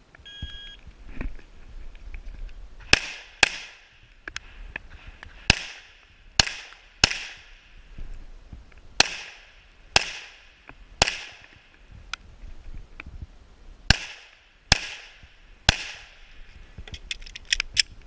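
Short electronic start beep from a shot timer, then a string of about a dozen pistol shots. Some shots come in quick pairs and each rings out briefly. This is the shooter engaging targets two rounds each from cover.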